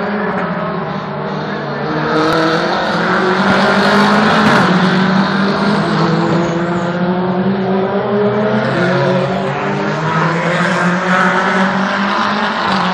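British Touring Car Championship race cars lapping at speed, engine notes rising and falling without a break as several cars accelerate and pass.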